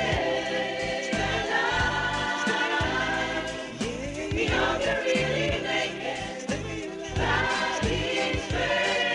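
Gospel choir singing in harmony over backing music with a beat.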